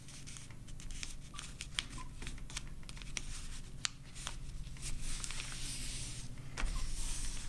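A sheet of paper rustling, with small crackles, as hands fold it and press down a crease; the rustling grows louder for a second or two after the middle.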